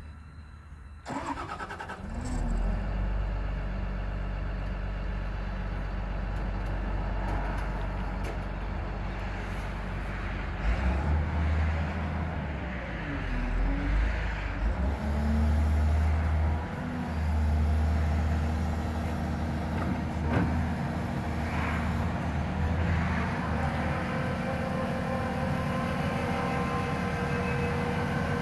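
Caterpillar M316D wheeled excavator's six-cylinder diesel engine cranking and catching about a second in, then running steadily, its speed rising and dropping a few times in the middle.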